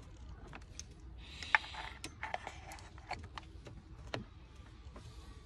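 Scattered light clicks and a brief rustle from hands working among parts in a car's engine bay, with one sharper click about a second and a half in.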